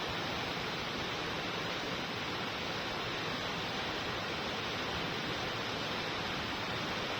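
Waterfall pouring in a steady, even rush of water.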